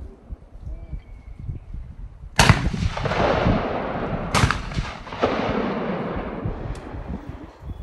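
Two shotgun shots at trap, about two seconds apart, each sudden and loud and trailing off in a long echo.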